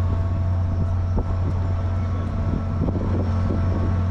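Steady low hum of a SunRail commuter train, with a few faint steady tones above it and scattered light clicks and knocks.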